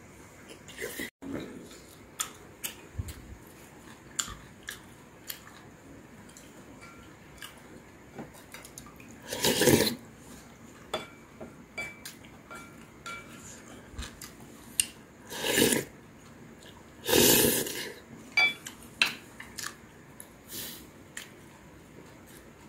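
Eating at the table: wooden chopsticks and a wooden spoon clicking and tapping against ceramic bowls and a plate, with three louder slurps of seaweed soup spread through.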